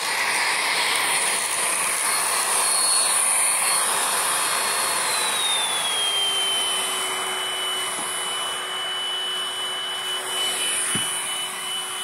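Vacuum cleaner with a crevice tool running steadily, sucking up loose dirt from carpet: a rush of air with a high whine that slides down in pitch about five seconds in as a lower hum comes in. A short knock near the end.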